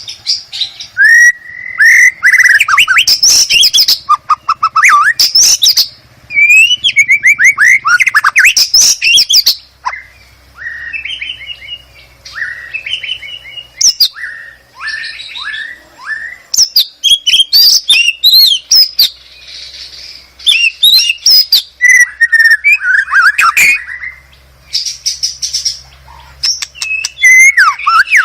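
White-rumped shama (murai batu) singing a loud, varied song of fast trills, chattering note runs and short downward-slurred whistles.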